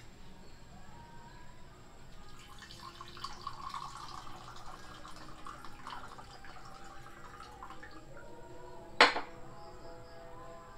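Water poured from a glass jug into a drinking glass, a splashing trickle lasting a few seconds. About nine seconds in, one sharp knock as a glass vessel is set down on the wooden board.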